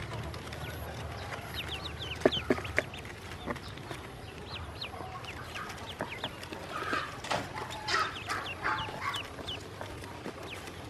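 A box full of newly hatched ducklings peeping: many short, high cheeps that fall in pitch, overlapping all through. There are a few sharp clicks a little after two seconds in, and a cluster of louder, lower calls between about seven and nine seconds.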